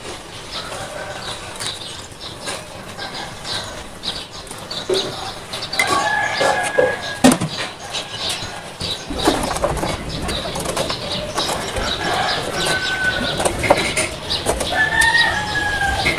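Live chickens calling, with several drawn-out crows or squawks, over frequent sharp knocks and clatter.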